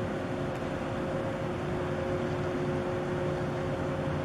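Steady low rumble and hum of a passing container ship's engines and machinery, with two held tones over an even hiss.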